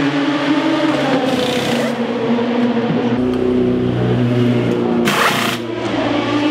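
Race car engines running at a steady pitch in the pit lane, the pitch shifting in steps, with two short hissing bursts: one about a second in and one about five seconds in.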